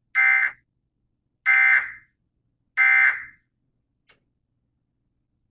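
Emergency Alert System end-of-message code from a NOAA Weather Radio broadcast: three short bursts of screeching digital SAME data tones about a second and a half apart, marking the end of the warning. A faint click follows about four seconds in.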